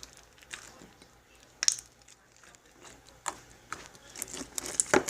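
Homemade clear glue slime being squeezed and played with in the hands, giving irregular wet clicks and crackles that come closer together near the end.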